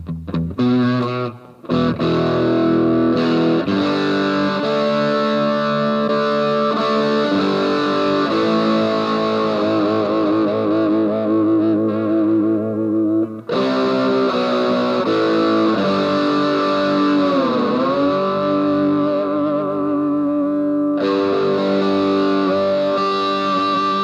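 Tokai SilverStar SS-36 electric guitar being played: chords and long held notes starting right at the beginning, with wavering vibrato on held notes and, about two thirds of the way through, one deep swoop down in pitch that comes back up.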